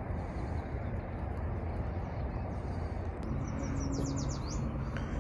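Outdoor ambience with a steady rushing background. A little past three seconds a low steady hum sets in, and around four seconds a bird gives a quick run of about six falling chirps.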